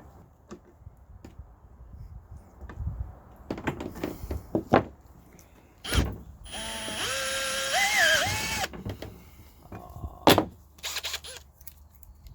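A power drill runs for about two seconds, its whine rising briefly in pitch partway through, between sharp knocks and clunks of metal parts being handled.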